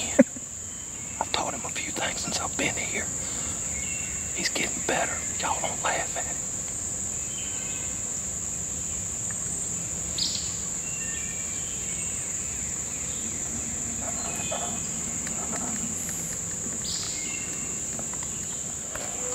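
Insects calling in the woods, one steady, unbroken high-pitched drone. A few short, scattered sounds stand out over it in the first several seconds.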